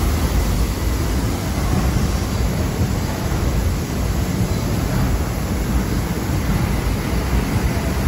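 Paddle wheel of a 1914 steam paddle boat churning the water inside its paddle box: a loud, steady, low rushing and splashing.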